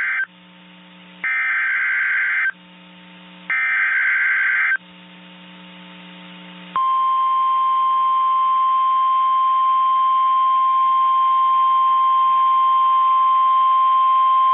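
NOAA Weather Radio Emergency Alert System tones: the tail of one and then two more short bursts of the warbling digital SAME header data, each about a second long, then about seven seconds in a long, steady, single-pitched warning alarm tone begins. A faint hiss and hum of the radio channel lies underneath.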